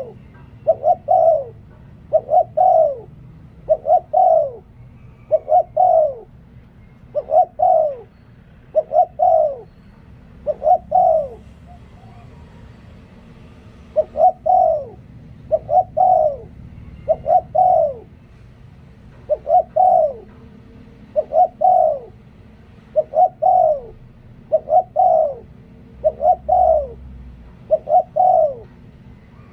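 Spotted dove cooing: a short phrase of two or three falling coos, repeated about every two seconds, with one longer pause about halfway through.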